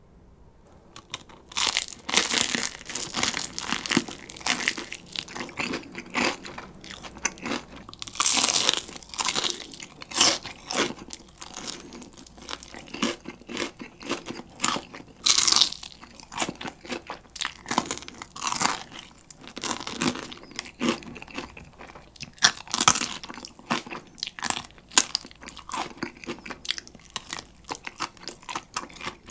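Close-miked biting and chewing of very crispy fried chicken (Kyochon Rice Chicken): dense, irregular crunches of the crackly coating, starting about a second and a half in, with louder clusters of bites several times.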